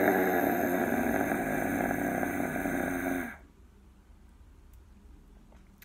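A long, steady lion-like roar that stops abruptly about three seconds in.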